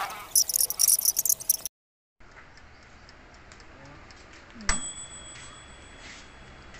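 A burst of high, rapid clicking noise in the first second and a half; then, after a cut, an oven toaster's mechanical timer bell dings once past the middle and rings on, signalling that the baking time is up.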